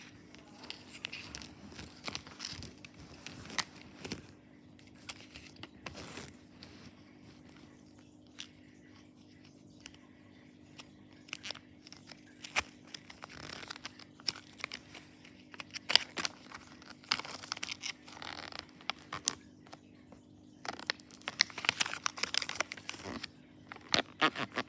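Plastic wrapping being torn open and crinkled by hand, with scattered clicks and rustles from small plastic parts being handled; the rustling gets busier near the end. A faint steady hum runs underneath.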